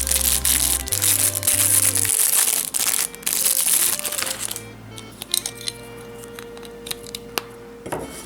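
Background music with a stepping bass line. For about the first half, plastic packaging crinkles loudly over it; it then stops, leaving the music and a few light clicks.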